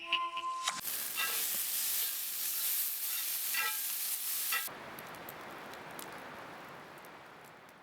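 Food sizzling and frying in a pan over a campfire, with a few short clinks of a utensil against the pan. A little under five seconds in, the sizzle cuts to a quieter hiss that fades away.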